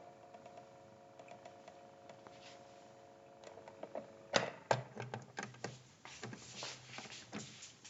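Faint steady hum from a portable record player, then a sharp click about four and a half seconds in followed by a run of irregular light clicks and taps as the player is handled after the record stops.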